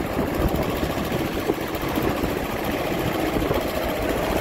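Steady running of vehicle engines on the move: a motorcycle and, just ahead of it, a homemade mini tractor with a four-cylinder 35 hp diesel engine, in third gear at about 40 km/h.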